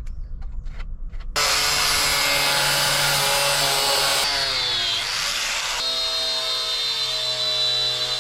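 Hand-held power tool starting up about a second in and cutting into the car's rear body panel. Its whine sags in pitch under load partway through, then it runs steadily again.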